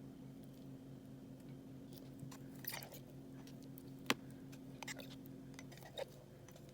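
Crunchy slime being handled, giving scattered small crackles and clicks, one sharp click about four seconds in, over a steady low hum.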